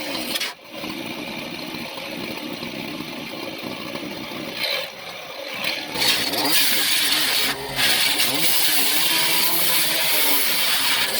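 A small gas engine revving up and down, its pitch rising and falling, with a brief drop-off about half a second in and another about five seconds in.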